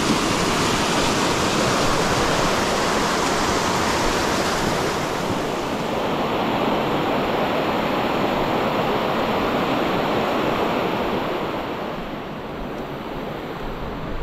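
Mountain stream rushing over stepped rock slabs, a steady noisy rush of water that turns softer about eleven seconds in.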